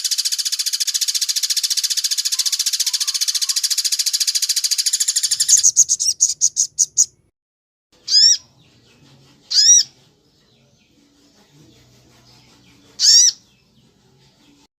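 Bird song from a masteran recording: a fast, high, continuous trill that breaks into slower separate pulses and stops about seven seconds in. Then come three single arched call notes a second or more apart.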